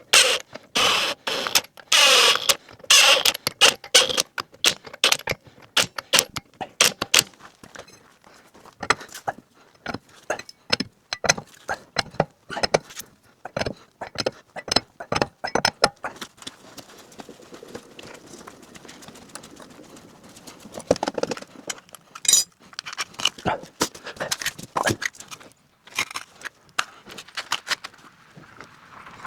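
Rapid runs of sharp metallic clicks and clinks, busiest in the first few seconds and again later, with quieter stretches between: tools and wheel hardware being handled during a wheel change.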